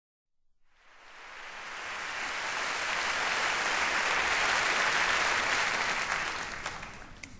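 Crowd applauding. The applause swells up over the first couple of seconds and dies away near the end into a few separate claps.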